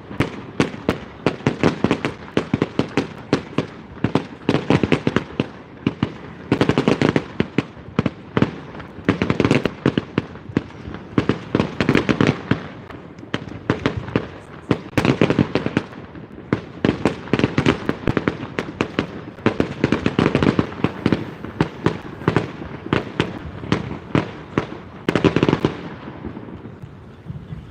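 Fireworks display at full barrage: a rapid, unbroken run of bangs and crackling, massing into heavy volleys every couple of seconds, then thinning out near the end.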